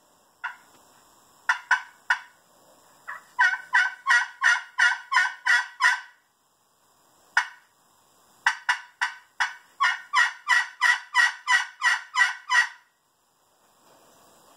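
Crystal-over-glass turkey pot call in a purpleheart pot, played with a snakewood striker, imitating a hen turkey's yelping. A few scattered yelps give way to two long runs of yelps at about three to four a second, one ending about six seconds in and the longer one ending near the end.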